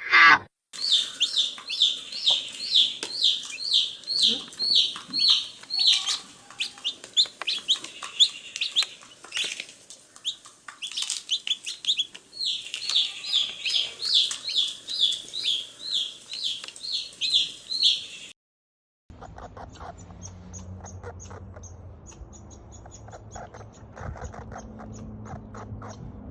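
A bird chirping over and over in short high notes, about two to three a second. About 18 seconds in the chirping cuts off abruptly. After a short gap there is a quieter, different sound: faint fast ticking over a low steady hum.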